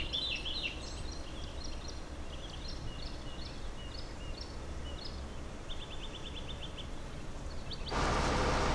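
Small birds chirping in short repeated calls, with a quick even run of chirps about six seconds in, over a low wind rumble. Near the end the sound changes abruptly to a louder steady noise.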